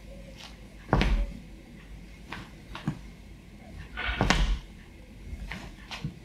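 Footsteps on a wooden hall floor during a footwork drill: two heavy thuds, about a second in and about four seconds in, as a foot lands in a step, with lighter shoe taps and scuffs in between.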